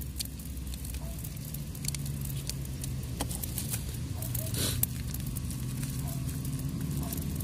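Cooking fire crackling, with scattered sharp pops and one brief louder hiss about four and a half seconds in, over a steady low hum.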